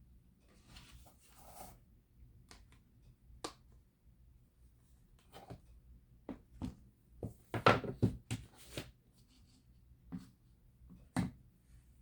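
Hands handling a smartphone and its packaging or accessories: scattered light clicks and taps with soft rustling, the loudest a quick run of clicks about eight seconds in and a sharp tap near the end.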